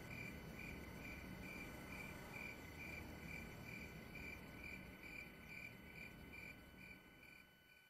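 A single cricket chirping steadily, about two chirps a second, over a faint low rumble. The sound fades out near the end.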